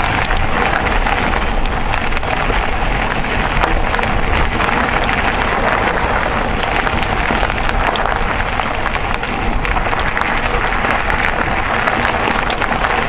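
Mountain bike ridden along a gravel trail: a steady rush of wind on the microphone and tyre noise, with frequent small clicks and rattles from the stones and the bike.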